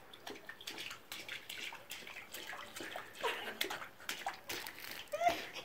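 Water splashing and sloshing in a bath, with scattered small knocks and splashes.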